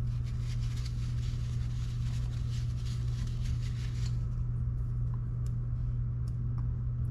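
Air conditioner running with a steady low hum. Over it a paper towel rustles for about four seconds as greasy fingers are wiped, then come a few small clicks as a drag washer is set back into the reel's main gear.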